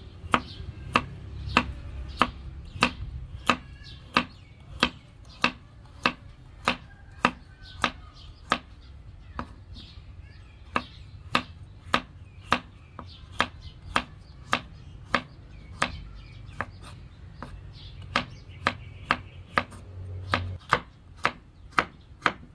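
Cleaver slicing peeled green mango thinly on a wooden cutting board: a sharp knock of the blade on the board with each cut, evenly paced at about one and a half a second, with a short pause about two-thirds of the way through.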